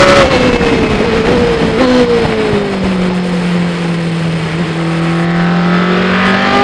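Formula Renault 3.5 V6 engine heard onboard as the car slows for a corner. The engine note falls off the throttle with a brief blip about two seconds in, as on a downshift. It holds low and steady through the turn, then the revs climb again near the end as the car accelerates out.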